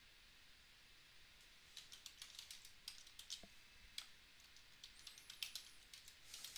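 Faint computer-keyboard typing: irregular keystroke clicks that begin a little under two seconds in and go on to the end.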